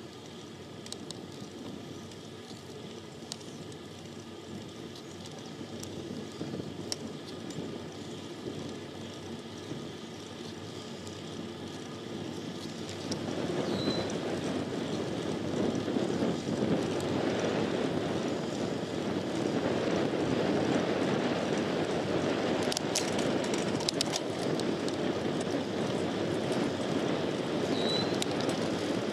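Road bicycle in motion, heard from a microphone on the handlebars: steady tyre-on-road rumble and wind noise, which grow louder about 13 seconds in and stay up.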